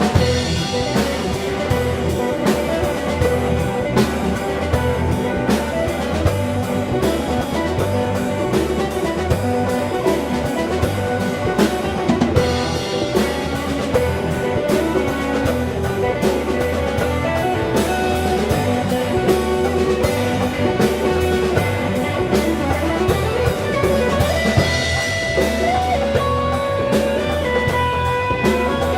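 Blues band playing live: guitar over a drum kit in an instrumental passage, with held and bent guitar notes near the end.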